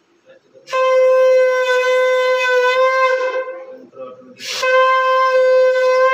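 Conch shell (shankha) blown in two long, steady blasts, the second starting about four and a half seconds in, as is done during a Bengali Hindu ritual.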